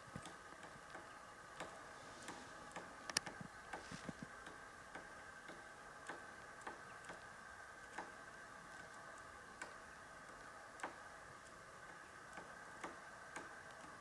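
Three-toed woodpecker pecking at a tree trunk: sharp single taps at an uneven pace, several a second early on and more spaced out later, the loudest about three seconds in.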